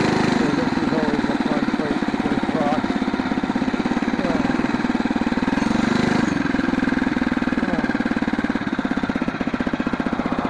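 Phatmoto Rover gas bike's small four-stroke single-cylinder engine running at low revs with an even pulsing beat, rising briefly about six seconds in.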